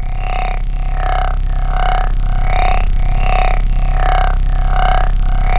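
Horror film score: a dark, low droning synth pad with a held mid tone, throbbing evenly about twice a second.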